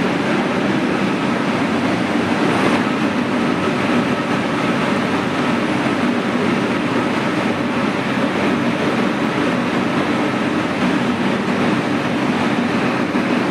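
Steady, unbroken mechanical running noise with a constant low hum.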